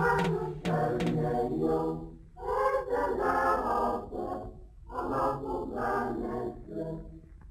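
Background music: a choir singing in phrases, with a few percussive hits near the start.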